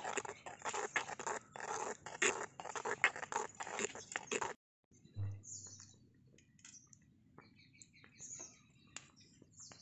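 Thin metal spoon stirring milk payasam in a small clay pot, a dense run of clicks and scrapes against the pot. It cuts off about halfway through, leaving faint scattered ticks and a few high chirps.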